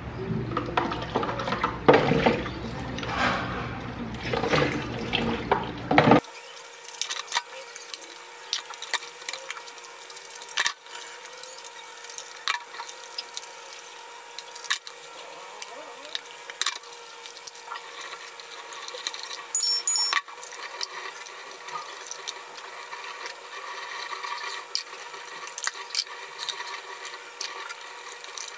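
Kitchen tap running into a sink while plastic lunch boxes and containers are rinsed and handled, with frequent light knocks and clatters of plastic. A louder, fuller passage opens the stretch and cuts off suddenly about six seconds in.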